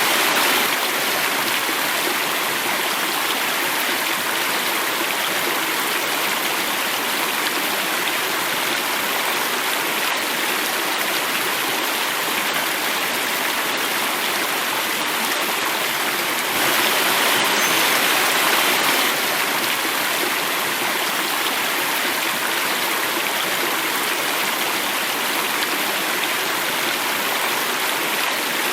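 Water running and falling over a small cascade, a steady rush with no breaks. About two-thirds of the way through it swells briefly, a little louder and brighter, then settles back.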